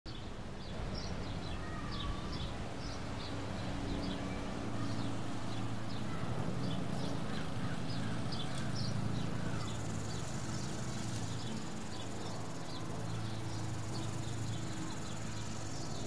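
Outdoor natural ambience: short, high chirps repeating two or three times a second over a steady low rumble.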